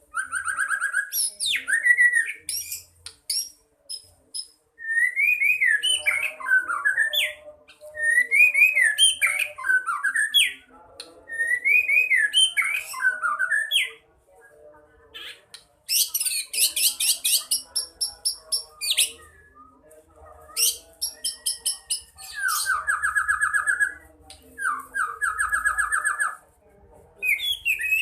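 Pet songbird singing in varied phrases: repeated rising-and-falling whistles, fast high trills and buzzy rattles, with short pauses between phrases. The bird has started singing again after a silent spell.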